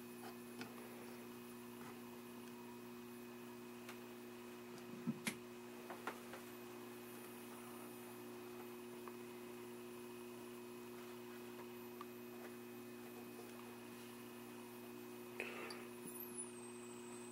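Vintage Admiral tube TV chassis running: a steady low mains hum with a faint, very high-pitched horizontal-oscillator whine. Near the end the whine slides sharply down in pitch as the free-running horizontal oscillator drifts, its hold being unstable. A few soft knocks come about five seconds in and again near the end.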